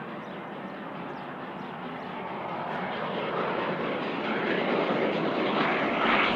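Steam train approaching: a steady rushing noise that grows louder over the last few seconds.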